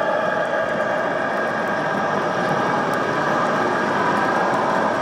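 Steady engine sound from a radio-controlled model bus's sound module, running while its rear wheels spin in loose grit.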